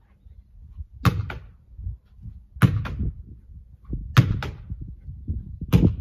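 Football thrown against a brick wall and caught in goalkeeper gloves, four times about a second and a half apart. Each is a pair of quick thuds: the ball striking the brick and the gloved catch of the rebound.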